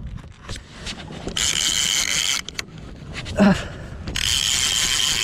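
Conventional fishing reel's drag screaming as a hooked fish pulls line off the spool, in two runs of about a second each.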